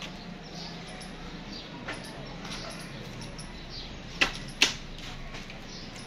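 Two sharp clicks about half a second apart over steady low background noise.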